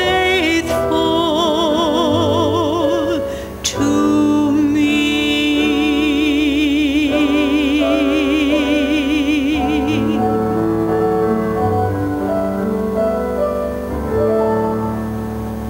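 Solo female voice singing the last line of a hymn with piano accompaniment. She holds the final note with a wide vibrato for about six seconds and stops about two-thirds of the way through, and the piano plays on through closing chords.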